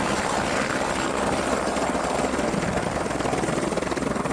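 Helicopter running steadily, a dense rush of rotor and engine noise with a fast, even chop.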